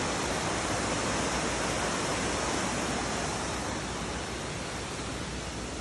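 Steady rushing of a waterfall, a dense even noise of falling water that grows slightly fainter about four seconds in.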